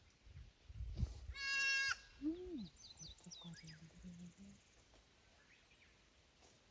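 A goat bleats once, a short high-pitched call lasting about half a second, about a second and a half in.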